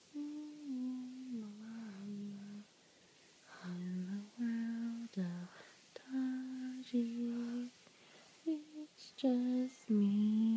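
A woman humming a slow lullaby to a baby in held notes, with short pauses between phrases.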